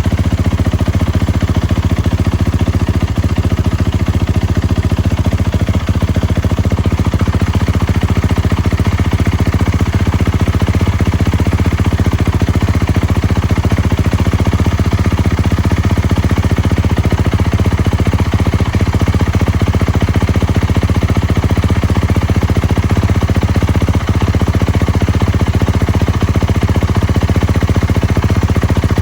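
2021 Kawasaki KX450F's single-cylinder four-stroke engine idling steadily, with no revving.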